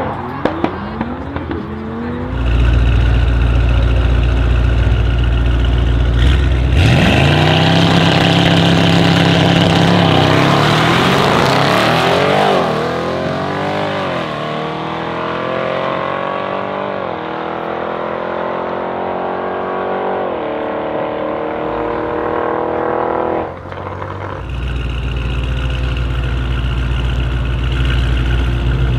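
Two twin-turbo V8 cars, a BRABUS 800 Mercedes-AMG E63 S and an Audi RS6 Avant C7, rumble deeply on the start line, then launch about seven seconds in. They pull hard away through the gears, the engine note climbing and dropping back at each upshift, about five shifts. Near the end comes another deep idle rumble of V8 engines waiting at the line.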